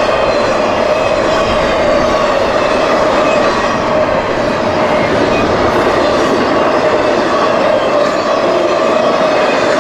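Railroad cars rolling past on the rails: a loud, steady rush of wheel and rail noise with no letup.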